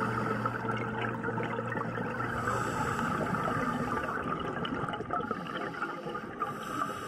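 Muffled underwater water noise with bubbling and crackling, under a low steady hum that fades out about two and a half seconds in.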